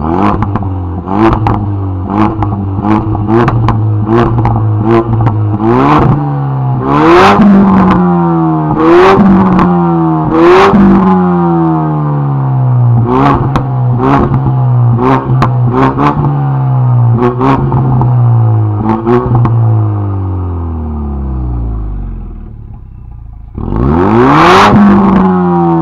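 Ford Mustang EcoBoost's 2.3-litre turbocharged four-cylinder, through a Magnaflow axle-back exhaust, revved repeatedly while stationary: a rapid series of short throttle blips and a few longer revs, each falling back toward idle. It settles to a steady idle for a few seconds past the middle, then one more long rev near the end.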